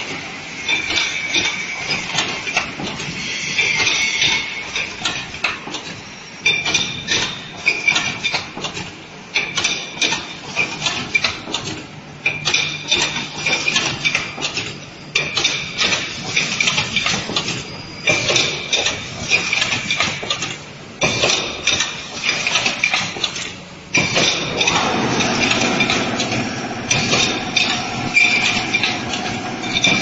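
Automatic coffee-capsule filling and sealing machine running: metal stations clank and clatter in a regular cycle about once a second as the capsule plates index. From about two-thirds of the way in, a fuller steady running hum joins underneath.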